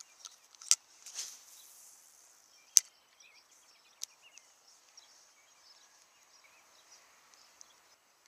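Spinning rod and reel being cast: a sharp click, a swish through the air about a second in, then a louder snap near three seconds as the reel's bail flips closed, and a smaller click after. A faint steady high hiss with light chirps runs underneath.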